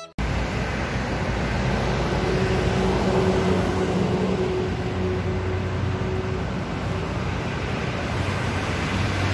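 Roadside traffic noise with a vehicle engine running: an even rush over a steady low hum.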